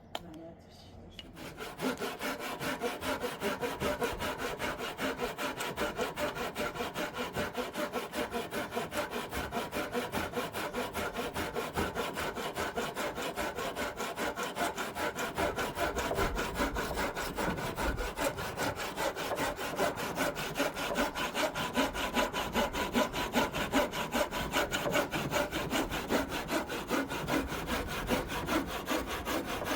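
A saw cutting through a wooden roof beam in quick, steady back-and-forth strokes that start about a second and a half in.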